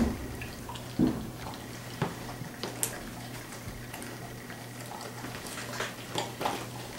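Dogs' claws clicking and ticking on a hard floor as they move about, with one low thump about a second in, over a steady low hum.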